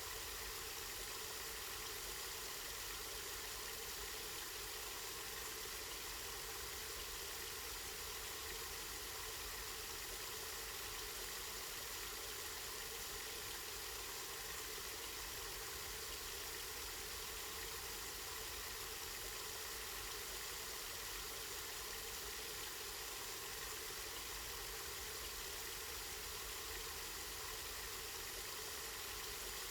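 Spring water running steadily, an even hiss with no breaks, over a low rumble.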